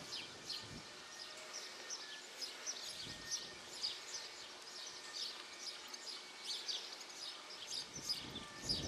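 Outdoor birdsong: many rapid high chirps throughout. A few soft thuds of a horse's hooves on the sand arena come in underneath.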